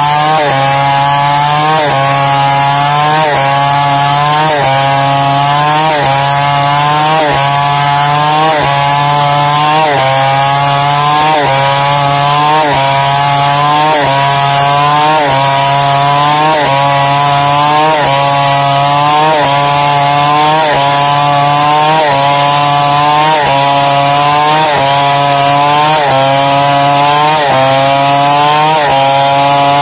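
Chainsaw running at high revs while ripping lengthwise along a log to cut a plank. Its engine note climbs and drops back in an even cycle, roughly every second and a quarter.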